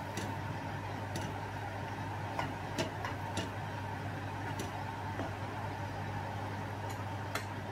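Wooden spatula stirring a thick cream sauce in a stainless steel pan, giving scattered light clicks and taps against the pan, over a steady low hum.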